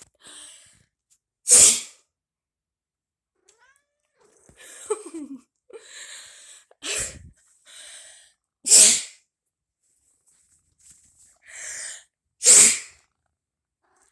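A person's fake sneezes, three loud ones, with a domestic cat meowing in reaction between them; the cat gives a falling, drawn-out meow about five seconds in.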